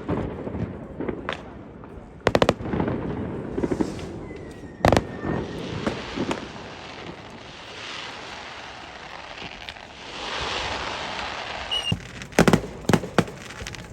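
Fireworks going off: single sharp bangs now and then, a spell of fizzing crackle a little past the middle, and a quick run of bangs near the end.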